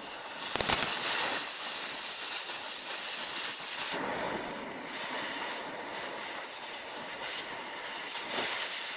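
Oxy-fuel cutting torch hissing steadily as it blows the heads off frame rivets.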